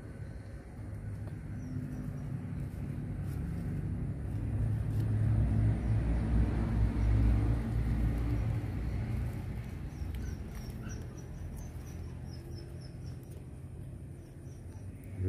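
Low engine rumble of a passing vehicle, swelling to a peak about halfway through and then fading away. Faint high bird chirps come briefly near the start and again toward the end.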